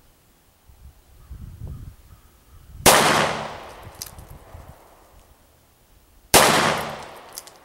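Two shots from a Taurus 905 9mm snub-nose revolver fired single action, about three and a half seconds apart, each followed by a long fading ring.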